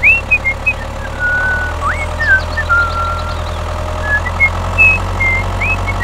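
Tractor engine idling steadily with a low hum, with short high whistled chirps scattered over it.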